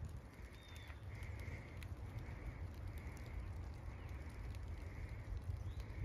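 Light rain pattering on dry fallen leaves over a low rumble, with a bird calling over and over in the distance.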